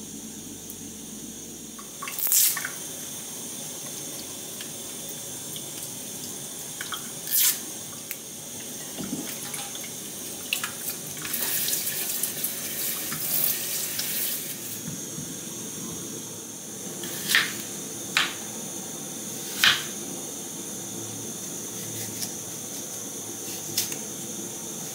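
Kitchen tap water running into a stainless steel sink over apples being rinsed, for a few seconds midway. Several sharp knocks sit around it, and near the end a knife taps on a wooden cutting board as an apple is sliced.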